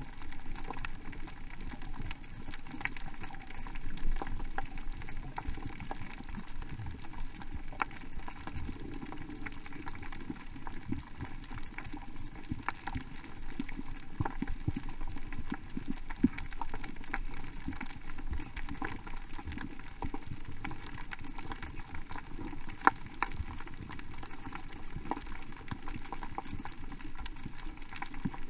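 Underwater coral-reef crackle: a steady bed of dense tiny clicks and pops, typical of snapping shrimp, with a few louder single clicks.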